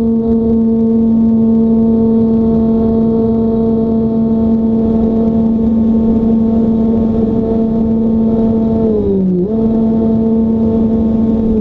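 Radio-controlled plane's motor and propeller running with a steady hum, heard from on board over a rumble of wind on the microphone. About nine seconds in the pitch drops briefly as the throttle eases and then comes back up, with a smaller dip near the end.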